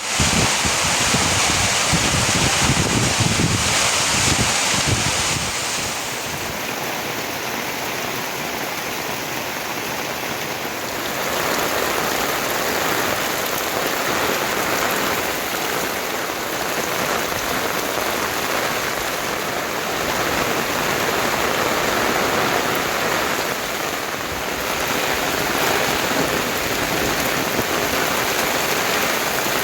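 Heavy rain falling, a dense steady hiss, with a low rumble under it in the first five seconds or so. The hiss changes in tone twice, about six and eleven seconds in.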